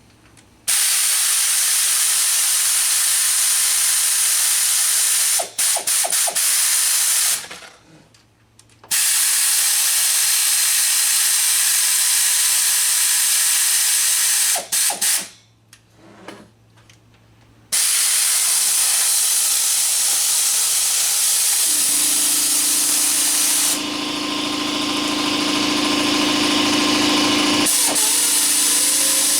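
Loud steady hissing in three long bursts, broken twice by short pauses; a low steady hum joins in during the last several seconds.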